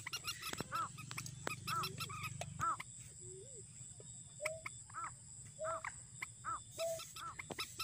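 White-breasted waterhen calling: a run of short, harsh, repeated notes, about two a second, higher notes alternating with lower ones, with a pause of about a second near the middle.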